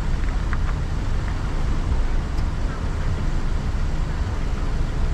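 Steady low rumble of a car, its engine and road noise, with a few faint brief clicks in the first second or so.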